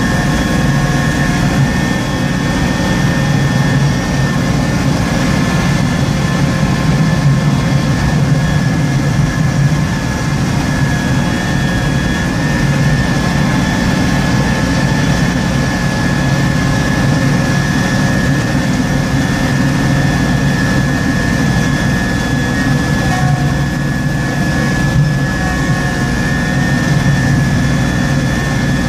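Small Kubota tractor's engine running steadily under load, driving a front-mounted snowblower that is throwing snow, heard from inside the cab. A steady high whine sits above the engine sound.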